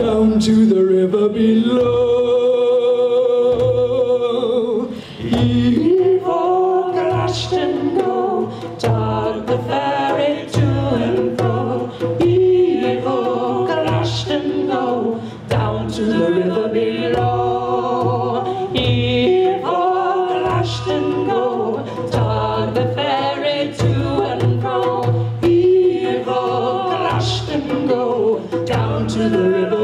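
Voices singing a sea shanty together over hand drums that beat a steady, even rhythm.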